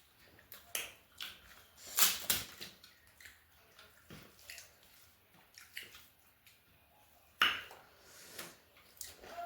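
Close-up eating sounds: a scattering of wet mouth clicks and chewing smacks, with two louder sharp sounds, one about two seconds in and one near the end.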